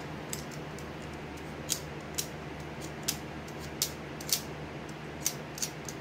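Hobby knife blade scraping dried glue off a small plastic model-kit part in short, sharp scratchy strokes, about eight of them starting about two seconds in, over a steady low hum.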